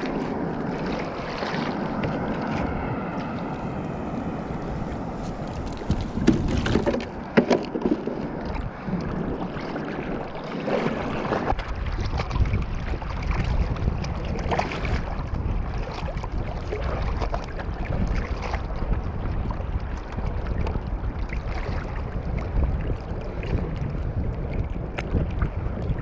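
Sea water sloshing and splashing around a float tube as the fins kick, with wind rumbling on the microphone that gets heavier about halfway through. A few knocks come around six to seven seconds in.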